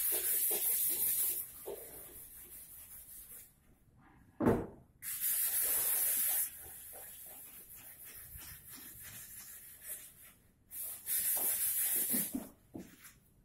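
Three bursts of compressed air hissing from an air gun fed by a portable air compressor, each about a second and a half long, with pauses between. A single hard knock of wood comes just before the second burst.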